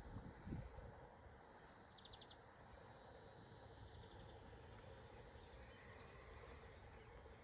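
Faint outdoor nature ambience: a steady high-pitched insect drone, with a brief rapid chirping trill about two seconds in. A few low thumps sound right at the start.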